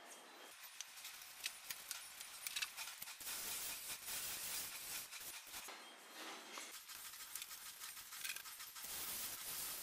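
A hose spray nozzle hisses water onto a car's lower body panel for a couple of seconds about a third of the way in. Around it are quieter stretches of a bristle brush loaded with soap paste being rubbed on the paint, with a few sharp clicks.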